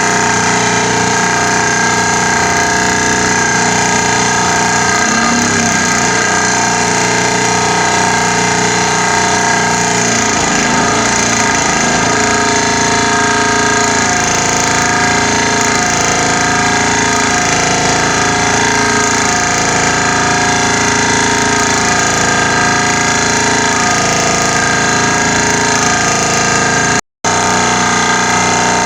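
Pile driver driving a rolled steel profile pile into the ground: a loud, steady metallic din with many ringing tones, broken by a split-second dropout near the end.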